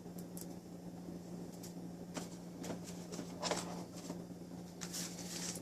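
Faint rustling and a few light clicks of packaging being handled as accessories are taken out of a tablet's box, over a steady low hum.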